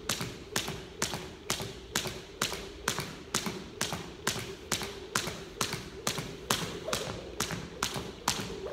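A 1/2 lb Crossrope weighted jump rope slapping a hardwood floor on each turn as the jumper hops, in a steady rhythm of about two and a half strikes a second. A faint steady hum runs underneath.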